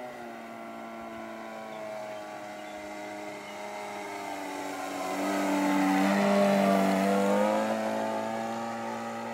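RC Cub model airplane's motor running at part throttle in slow flight, growing louder as the plane passes close about two-thirds of the way in, then fading.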